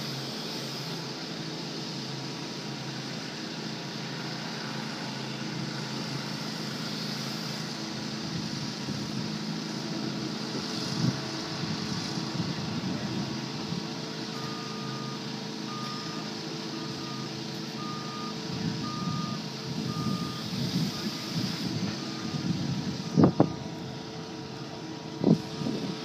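Tractor loader backhoe's diesel engine running steadily while the backhoe arm is worked. About halfway through, the regular beeping of a reversing alarm starts, and a few sharp clanks come through, two of them close together near the end.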